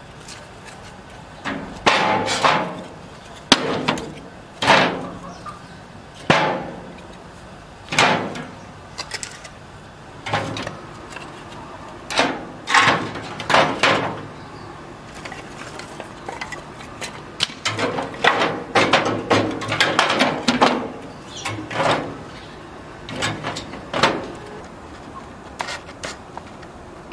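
Short wooden sticks being stacked into a gas-stove oven, clattering against each other and the oven's metal rack in a series of irregular knocks.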